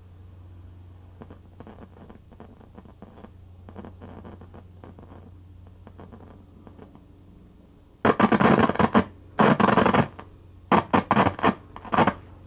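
Scratchy crackles and clicks as the front knobs of a 1966 Sylvania tube colour television are turned with the set powered on, over a steady low hum. Faint at first, then four loud scratchy bursts in the last few seconds.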